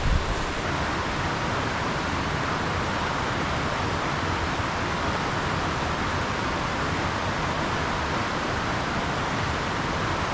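Rushing water of a mountain creek, a steady even rush with no change.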